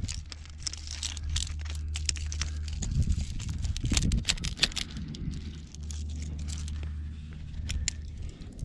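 Handling noise of rock climbing close to the microphone: a scatter of clicks, scrapes and rustles from hands, gear and clothing against rock, over a steady low rumble.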